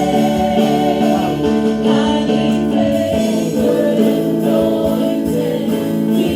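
Worship music with singing over held chords, loud and steady.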